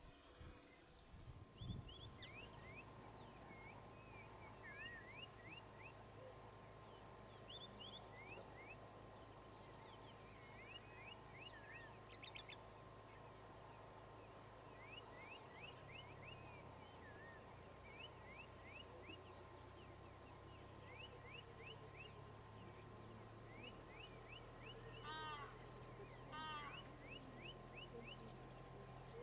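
Faint bush ambience: many wild birds calling with short, quick chirps throughout, and two louder, harsher calls near the end. A low steady hum runs underneath.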